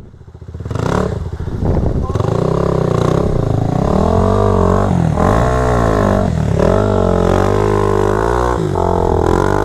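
Kawasaki KLX300's single-cylinder four-stroke engine picking up after a brief lull, then revving up and down repeatedly as the throttle is worked about once a second, the bike under load at a creek crossing.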